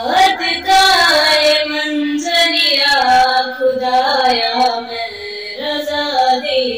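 A girl singing a naat, an Urdu devotional poem, into a microphone, unaccompanied by words-free pauses: long held notes that glide up and down in pitch.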